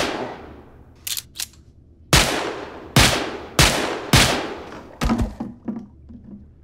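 Gunshots, each with a short fading echo. The tail of one shot fades right at the start, a few quick clicks of the gun's action come about a second in, then four loud shots follow roughly two-thirds of a second apart, and weaker sharp cracks come around five seconds in.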